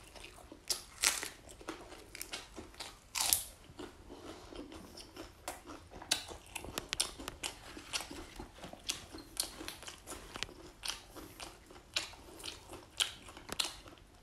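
Close chewing and biting of crisp-skinned grilled crocodile meat, with many short sharp crunches throughout.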